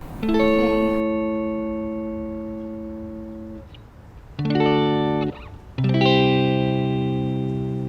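Background guitar music: three sustained chords. The first rings for about three seconds, a short second one comes about halfway through, and a third starts near six seconds and rings on.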